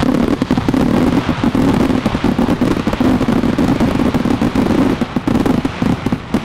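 Fireworks display: a loud, dense barrage of rapid bangs and crackling from many bursts at once, over a steady rushing. It cuts off suddenly with a last bang near the end.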